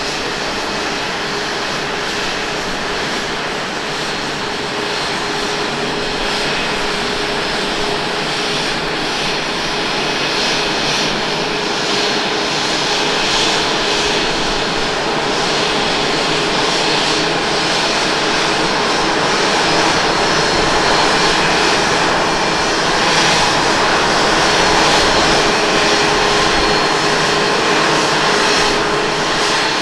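Boeing 787-9 airliner landing: steady jet-engine noise with a held whining tone as it comes in over the runway threshold, touches down and rolls out. It grows gradually louder in the second half as the aircraft rolls past with its spoilers raised.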